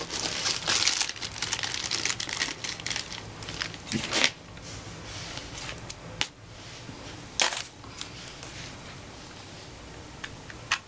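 Rustling and crinkling from hands rummaging through craft supplies, dense for the first few seconds, then a few sharp clicks and knocks as items are picked up and set down.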